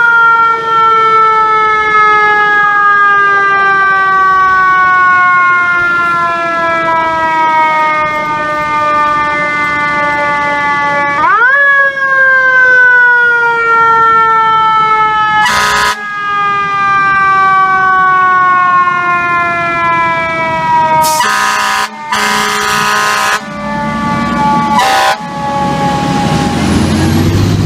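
Fire truck's siren winding up quickly and then coasting slowly down in pitch over about ten seconds, twice. It is cut into by air horn blasts in the second half, the longest lasting about two seconds. A heavy truck engine rumbles close by near the end as the apparatus passes.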